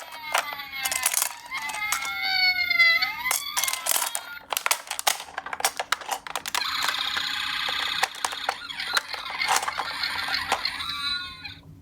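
Toy ambulance minicars' electronic sirens wailing in overlapping rising and falling tones, among frequent sharp clicks and clinks of the toy cars knocking together. About six seconds in a harsher, buzzing siren sound takes over for about five seconds, then cuts off.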